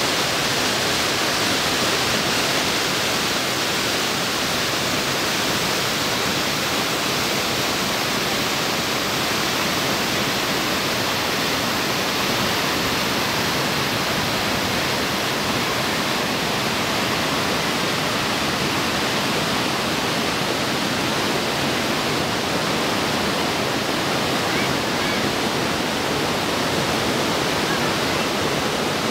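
Waterfall and whitewater rapids pouring over granite, a steady, even rush of water.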